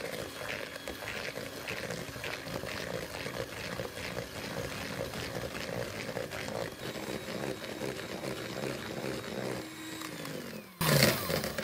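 Electric hand mixer running steadily, its beaters whisking egg yolks with sugar and lemon zest in a plastic bowl. The motor winds down just after ten seconds in, and a short loud noise follows near the end.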